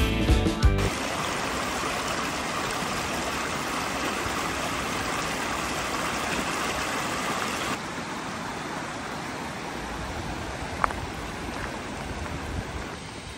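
Steady rushing of water from a mountain stream or small waterfall, after a few seconds of music fade out at the start. The rushing drops slightly in level about eight seconds in, with a single faint click near the end.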